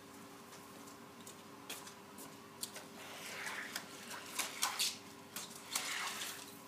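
Squeegee on a long pole swishing water across wet pool paving, in a run of short strokes with light scrapes and clicks that grow busier after about two and a half seconds. A faint steady hum lies underneath.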